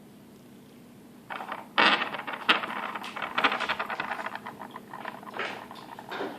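Egg-shaped rattlesnake-egg toy magnets snapping together and rattling: a couple of sharp clicks about a second in, then a rapid metallic chattering that thins out near the end.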